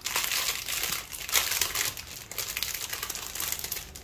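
Clear plastic packaging bag crinkling as it is handled, in irregular crackly bursts, loudest about halfway through.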